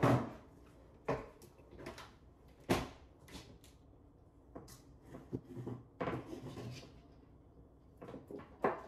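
Scattered knocks and clicks of things being handled in a kitchen, like a cupboard or drawer being opened and closed, spaced a second or two apart over a quiet room.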